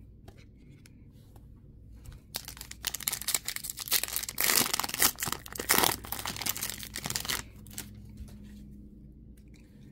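Foil wrapper of a Topps Chrome trading-card pack being torn open and crinkled by hand: a dense crackling tear starting about two seconds in and lasting about five seconds, loudest in the middle.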